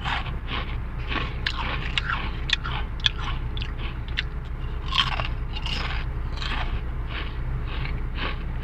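Crunching and chewing of a thin purple sweet potato crisp (Mister Potato original-flavour sweet potato chips), close to a lapel microphone, with irregular sharp crunches throughout.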